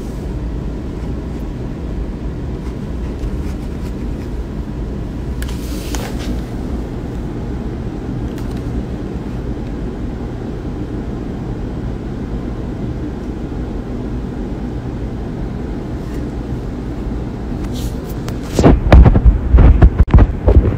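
A steady low rumble of background noise. Near the end come a couple of seconds of loud, irregular bumps and rubbing: handling noise from a handheld phone's microphone as the phone is moved.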